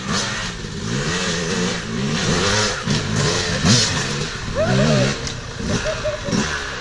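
Two-stroke Yamaha YZ250 dirt bikes revving hard under load while climbing over logs, the engine pitch rising and falling again and again as the throttle is blipped, with more than one bike running. A sharp clack a little past halfway.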